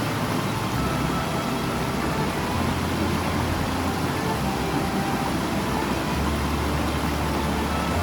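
Mountain stream water rushing over rocks in a steady, unbroken roar.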